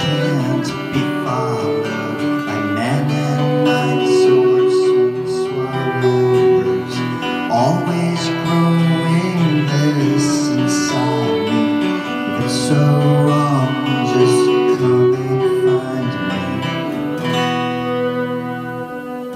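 A band playing live: acoustic guitar with long held notes over it.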